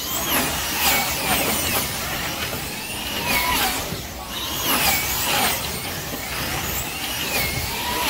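Wing-class slot cars racing on a large banked track. Their small electric motors whine high, the pitch sweeping down and up again as cars come past every second or so.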